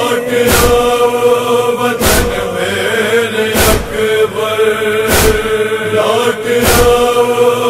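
Interlude of a noha, a Shia mourning lament: a sustained chorus of voices holds a droning chant while a heavy beat strikes about every second and a half.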